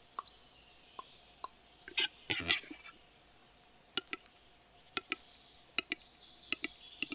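Male western capercaillie's display song: sharp knocking clicks, single at first and then in quick pairs coming faster toward the end. About two seconds in there is a brief louder noisy burst.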